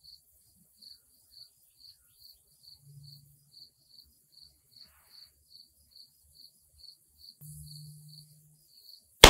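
Faint insect chirping in an even rhythm, about three chirps a second. Near the end comes a single loud shot from a Galil DMR rifle chambered in 6.5 Creedmoor.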